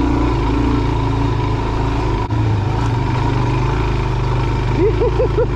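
Suzuki DR-Z400's single-cylinder engine running steadily under the rider on a climbing dirt trail, with a brief dip about two seconds in and a few short rising sounds near the end.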